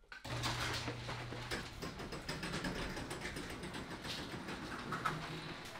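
Onewheel electric skateboard's hub motor humming low as it balances and rolls, with a steady crackle of small clicks and rattles from the wheel on the concrete floor.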